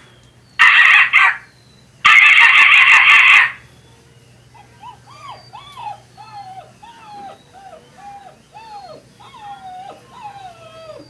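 A man imitating a puppy with his voice, sounding on an in-drawn breath: two loud, rough, breathy bursts, then a run of about a dozen short, high whimpering yelps that rise and fall in pitch.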